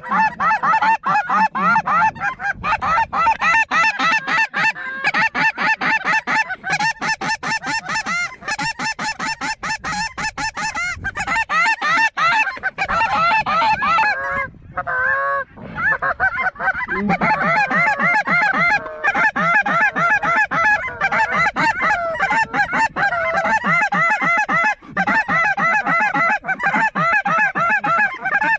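Snow goose calls: a loud, dense chorus of many overlapping honks, with a brief lull about fourteen seconds in.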